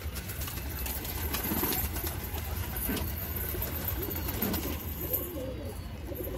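Domestic pigeons cooing over and over, with a few sharp wing flaps as birds land.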